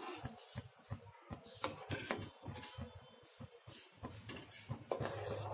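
Steel ladle stirring milky sewai kheer in a metal kadhai, scraping and clicking lightly against the pan in irregular strokes.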